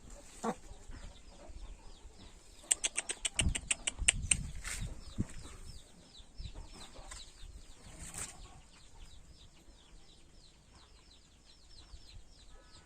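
A rooster beating its wings in a quick run of about ten strokes for a second and a half, about three seconds in. A steady stream of short, high, falling chirps runs underneath.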